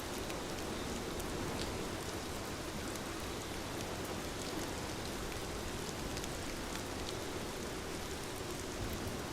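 Steady rainfall, an even hiss with scattered light drop ticks.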